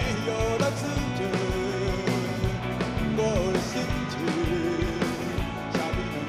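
Live rock band playing an instrumental passage between sung lines, with a steady drum beat under a gliding melodic lead.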